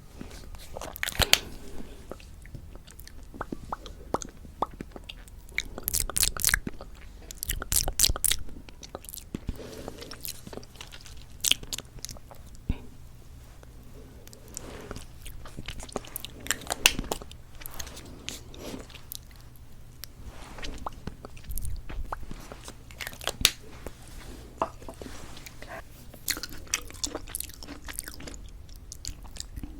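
Lipstick being applied to the lips close to the microphone, with lip smacks and small mouth clicks coming at irregular intervals.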